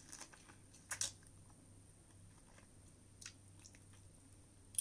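A person biting into and chewing a fresh strawberry: faint, soft, wet chewing with a few short sharp clicks, the clearest about a second in and another at the end.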